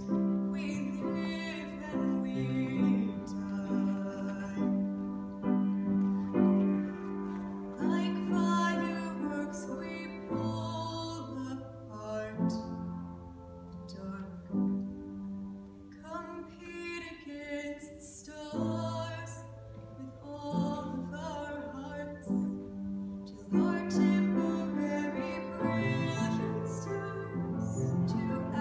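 A young woman singing a slow song and accompanying herself on an acoustic upright piano, in phrases of a few seconds with sustained low piano chords beneath.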